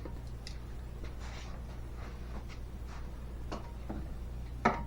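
A few light clicks and taps of small parts being handled, the sharpest near the end, over a steady low hum.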